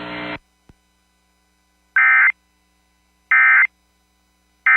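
Emergency Alert System SAME data bursts: three identical short electronic squawks, each about a third of a second long and a little over a second apart, sent as the end-of-message code that closes the tornado warning. Just before them the broadcast's background hum cuts off, followed by a faint click.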